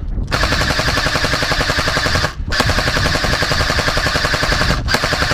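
Airsoft rifles firing long fully automatic bursts: a fast, even rattle of shots, with short breaks about every two and a half seconds.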